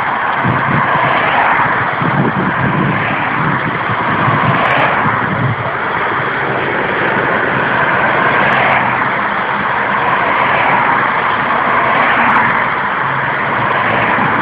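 Cars of a bike-race convoy driving past one after another, their engine and tyre noise swelling and fading as each goes by.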